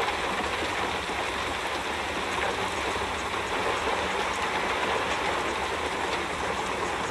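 Steady rushing-water noise, like rain or running water: a continuous even hiss over a low rumble that neither rises nor falls.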